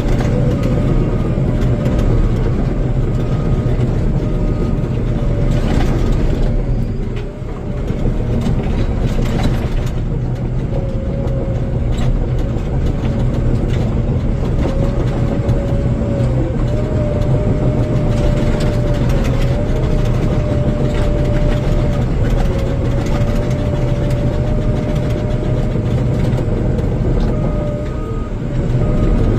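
Bulldozer's heavy diesel engine running steadily, with a high whine that wavers a little in pitch and scattered clanks from the machine. The sound dips briefly about seven seconds in.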